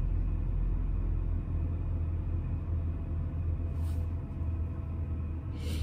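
Car engine idling, heard from inside the cabin as a steady low rumble, with two short sniffs from a person near the end.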